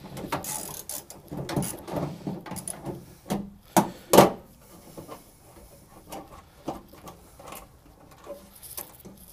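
Ratchet wrench clicking as a tailgate bolt is backed out. Two louder knocks come about four seconds in, followed by lighter, scattered handling clicks.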